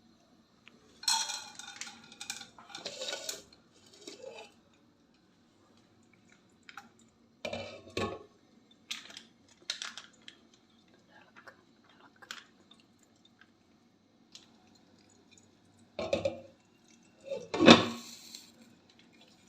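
Metal pan and kitchen utensils clanking and scraping on a gas stove: a series of separate clatters, the loudest near the end, over a faint steady hum.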